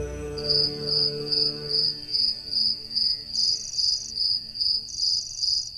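Cricket chirping in an even rhythm of about two or three high chirps a second. Sustained low music notes fade out over the first two seconds.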